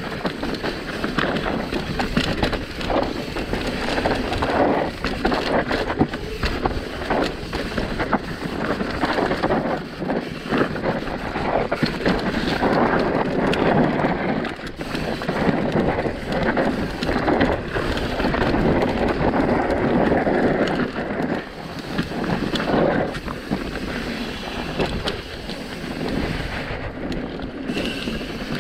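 Mountain bike descending a rough dirt trail at speed: tyres rolling over dirt and rock and the bike clattering over bumps, with wind noise on the microphone.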